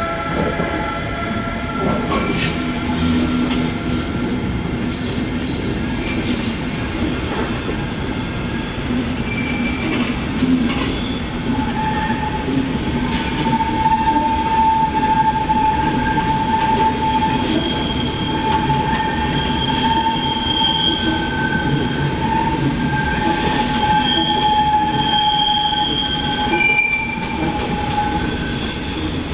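Train wheels squealing against the rail as a train moves slowly through the station, over a steady rumble of the train. The squeal, several high steady tones at once, sets in about twelve seconds in and holds until near the end.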